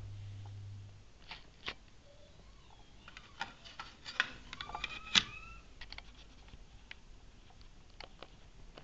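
Plastic parts of a solar window vent fan being handled and set down: a low steady hum stops about a second in, then scattered clicks and taps with a brief squeak, the sharpest click about five seconds in.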